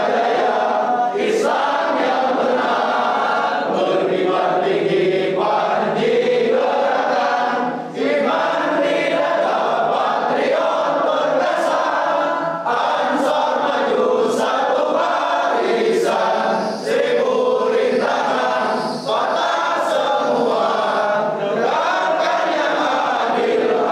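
A large group of men singing a song together in unison, phrase by phrase with short pauses for breath.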